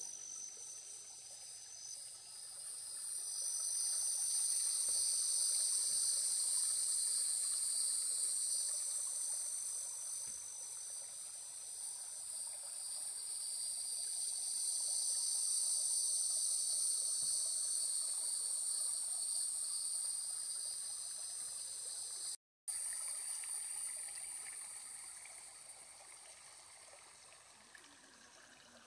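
A high-pitched insect chorus buzzing steadily, swelling louder and fading back over many seconds, over the faint trickle of a shallow rocky creek. The sound cuts out for a moment about two-thirds of the way through, and the buzzing dies down near the end.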